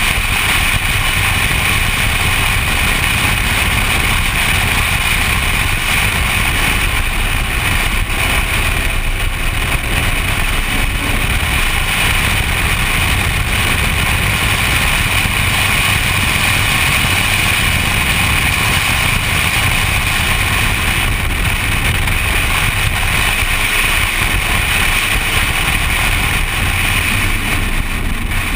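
Steady wind rush and buffeting on a camera mounted outside a BMW driven at track speed, with the car's engine running underneath.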